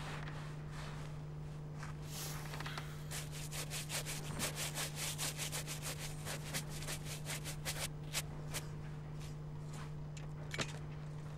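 Quick rubbing strokes, a hand brushing over a leather shoe, about five strokes a second for several seconds, over a steady low hum. A single sharp click near the end.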